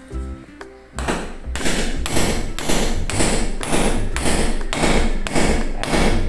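Hammer blows, about two a second, on a hand tool held against a masonry wall while a split air-conditioner's steel wall-mounting plate is being fixed. The blows start about a second in.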